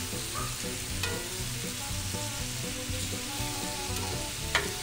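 Cubes of New York strip steak sizzling as they sear in oil in a hot cast iron skillet, stirred and turned over with a large flat utensil. A sharp click near the end.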